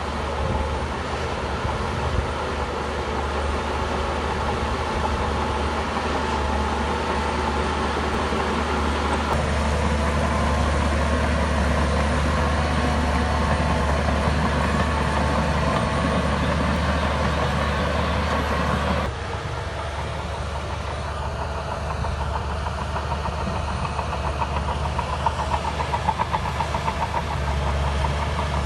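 Heavy diesel engine of a bulldozer running steadily while working dirt. It eases off suddenly about two-thirds of the way through, and a fast rattle follows near the end.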